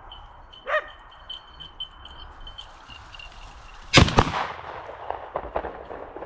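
A shotgun fired at a wild boar, one loud report about four seconds in, with a second crack right after it.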